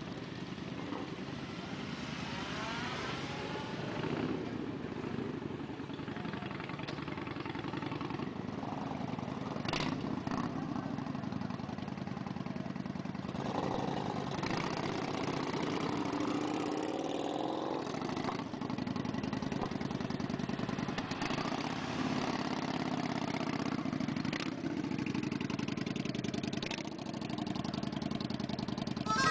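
Large cruiser and touring motorcycles running as they pull out one after another, their engines revving up as each one accelerates away, with the pitch rising twice: about two seconds in and again around fourteen seconds in.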